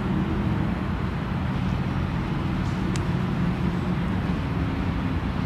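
Steady low rumble of distant road traffic, with a brief faint click about three seconds in.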